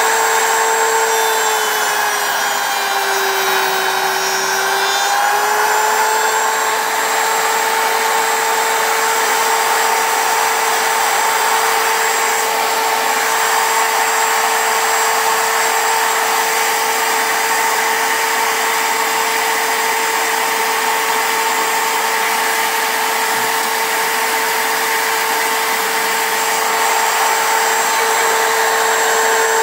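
Wood router running at high speed with a steady whine, cutting into a wooden lathe blank. The pitch sags from about three to five seconds in as the bit loads up in the cut, then recovers and holds steady.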